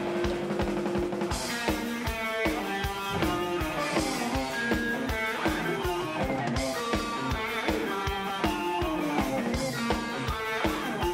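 Live rock band playing an instrumental passage: an electric guitar plays a lead line of single notes over a steady drum beat and bass.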